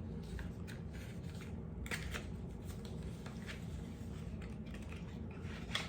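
Small handling noises: scattered soft rustles and clicks of a cardboard product box being handled, the strongest about two seconds in and just before the end, over a steady low hum.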